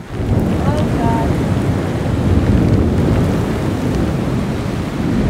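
Heavy storm rain with wind buffeting the microphone, a loud low rumbling noise that comes up suddenly at the start and holds steady.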